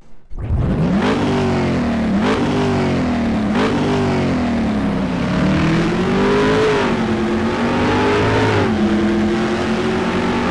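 Car engine accelerating hard through the gears. The pitch climbs and drops sharply at each of three quick upshifts in the first four seconds, then rises and falls more gradually.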